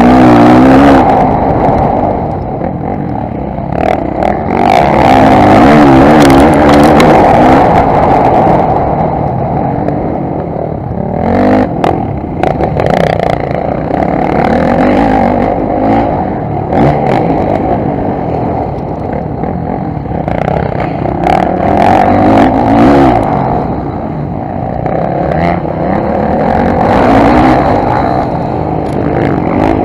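Onboard motocross bike engine running hard, its pitch rising and falling as the rider accelerates and backs off, with a few sharp knocks near the middle.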